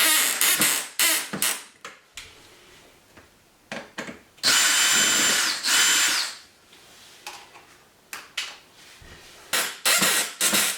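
Power drill running in short bursts, with a steady motor whine: a few quick runs, a longer run of about two seconds in the middle, and more short runs near the end. It is drilling or driving the fixing screws that hold a newly fitted dishwasher in place.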